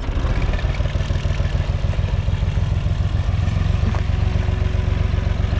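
UTB 445 tractor's diesel engine running at raised revs under throttle, a loud steady low chugging as the tractor is set off.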